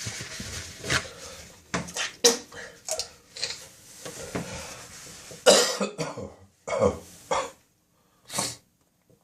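A person coughing and clearing their throat in a run of separate bursts during an early-morning coughing spasm, the loudest about five and a half seconds in and a last short cough near the end.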